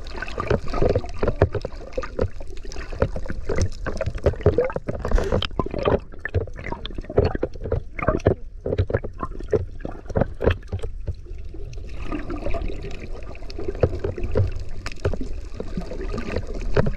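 Water splashing and gurgling around a camera in the sea, with a rapid, irregular run of short knocks and sloshes over a low rumble.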